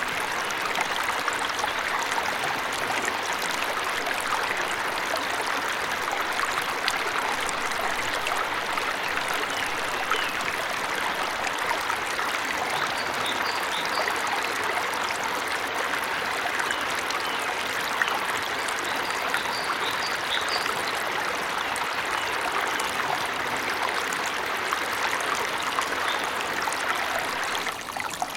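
Waterfall water rushing steadily in an even hiss, with a few faint, short high bird chirps in two brief clusters around the middle.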